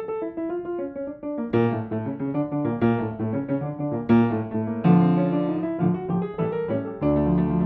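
Upright piano being played: a quiet descending line of single notes, then from about a second and a half in, louder repeated chords over low bass notes.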